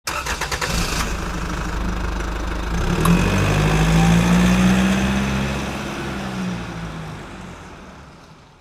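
Car engine sound effect: a rapid clicking start, then the engine running with a steady low hum that swells around the middle and fades out near the end.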